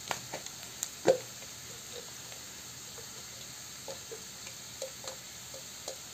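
Sliced onions frying in mustard oil in a kadhai, a steady sizzle, with a steel spatula scraping and tapping against the pan now and then; the loudest tap comes about a second in.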